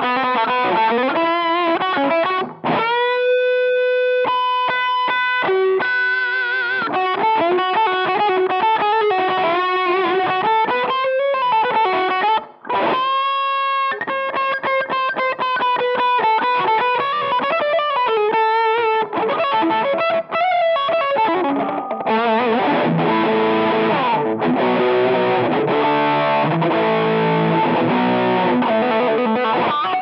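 Electric guitar played through a Behringer UM100 Ultra Metal distortion pedal, giving a heavily distorted tone. It plays single-note lead lines with a couple of long held notes, then moves to chords about two-thirds of the way through.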